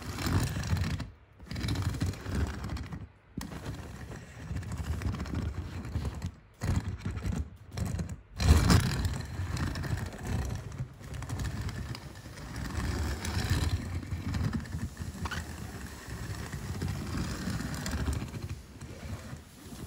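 Tomica die-cast toy car's wheels rolling across a ribbed plastic surface: a steady rolling noise broken by several sudden cuts, loudest about eight and a half seconds in.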